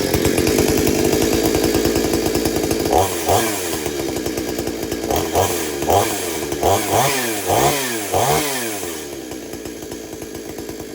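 Two-stroke chainsaw fired up on the first pull, running fast at first and then blipped up and down about six times in the middle before settling to a lower idle.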